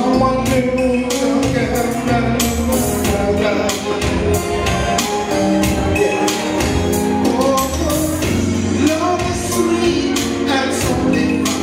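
A man singing live into a microphone over music with a steady beat, played through a PA system.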